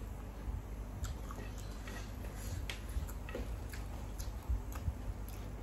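Close-up eating sounds: a person chewing food, with scattered wet mouth clicks and soft smacks.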